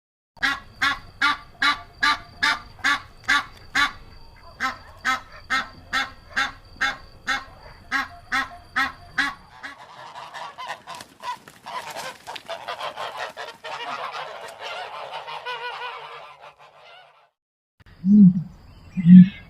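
Large waterfowl honking in a regular series, about two honks a second, with a short break about four seconds in. From about ten seconds a flock's dense, overlapping calling takes over for some seven seconds. Near the end there are two deep, low calls.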